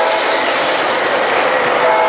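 O-gauge three-rail model train running close by, a steady rolling noise of its wheels and motor on the track. The locomotive's horn chord cuts off just after the start and sounds again near the end.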